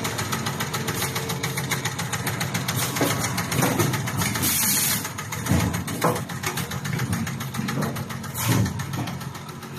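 Cable tie injection molding machine and its automatic packing machine running: a steady, fast mechanical rattle with several heavier thumps and a brief hiss about halfway through.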